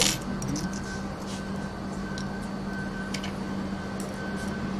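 Scattered small clicks and taps of a foil-impressioning lock tool being handled and fitted, over a steady background hum.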